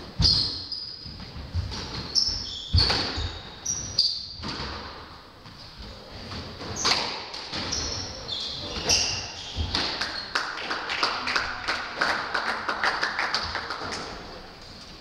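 Squash rally: the ball cracks off rackets and walls every second or two, and court shoes squeak on the hardwood floor. In the last few seconds spectators clap.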